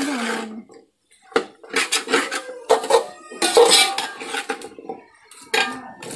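Steel ladle scraping and clinking against a metal pot as mushroom pieces are stirred: a string of irregular strokes, with a short pause about a second in.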